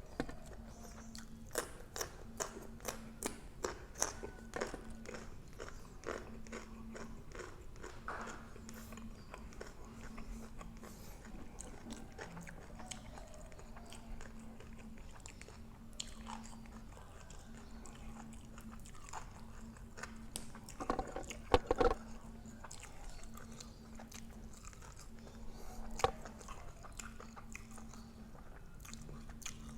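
A person chewing and biting into crispy grilled pork neck close to the microphone, with many small mouth clicks and crunches in the first few seconds. A louder cluster of knocks comes about two-thirds of the way through, over a faint hum that comes and goes.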